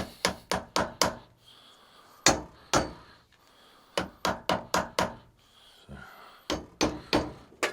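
Hammer taps on a milling machine vise, nudging it into square while it is trued with a dial indicator: about sixteen sharp knocks in quick groups of two to five, with short pauses between groups.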